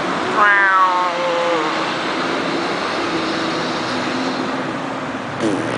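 Car tyres on the road giving a steady hiss. About half a second in, a squeal falls in pitch over roughly a second, and near the end there is a brief chirp.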